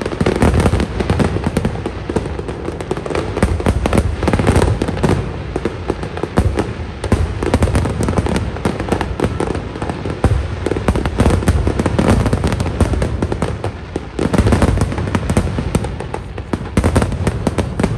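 Fireworks display: a dense, continuous barrage of bangs and crackles, with louder clusters of bursts about four, ten and fifteen seconds in.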